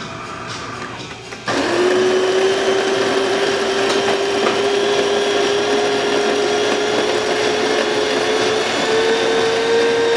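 Burr grinder of a DeLonghi Magnifica espresso machine, newly replaced, starts suddenly about a second and a half in and grinds beans for a shot. It runs steadily and loud, its pitch creeping slowly up and stepping up near the end.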